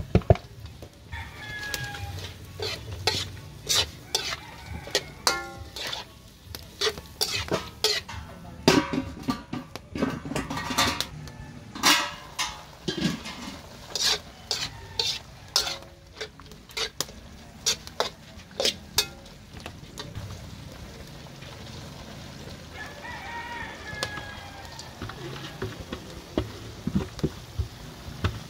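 Metal spatula scraping and clacking against a wok as vegetables are stir-fried over sizzling heat, in quick, irregular strokes; the strokes stop about two-thirds of the way through, leaving a quieter sizzle. A rooster crows in the background.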